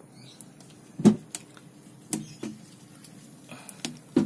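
A few light knocks and clicks, the loudest about a second in, over a faint steady hum.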